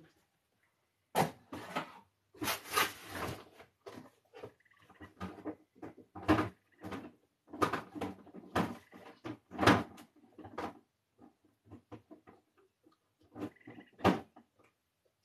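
Plastic paint bottles knocking and clattering together as someone rummages through a box of them, in an irregular string of knocks and rattles.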